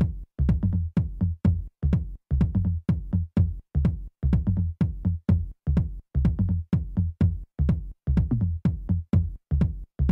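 Electronic background music with a steady drum-machine beat and bass.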